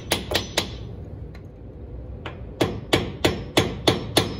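A hammer taps a screwdriver wedged into the gasket seam of a Sterling 10.5 rear differential cover, driving it in to break the stuck old gasket seal. A few sharp taps about three a second, a pause of about two seconds, then a steady run of taps at the same pace.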